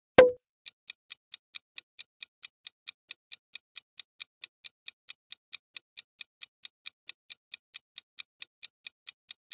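A ticking-clock countdown-timer sound effect, with short, even ticks at about four a second. It follows a single sharp pop about a quarter second in, the loudest sound here.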